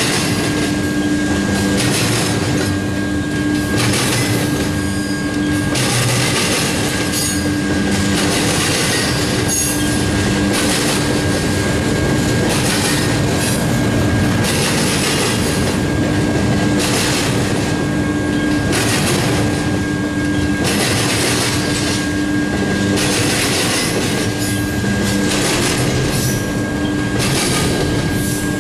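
Double-stack intermodal well-cars rolling past at track side: steady wheel-on-rail noise swelling each time a set of wheels goes by. A thin, high, steady whine comes and goes.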